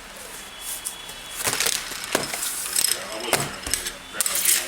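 Webcam packaging being handled and opened by hand: after a quieter first second and a half, a run of crinkles, scrapes and clicks.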